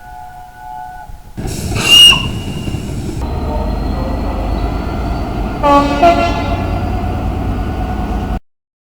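A British train's horn sounds over the rumble of a passing train: a short, loud high blast about two seconds in, then a second, richer blast about six seconds in. The train noise cuts off suddenly near the end.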